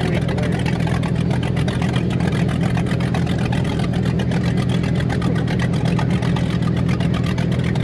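Motorboat engine running at a steady cruising speed, a constant low drone with the rush of water and wind over the hull.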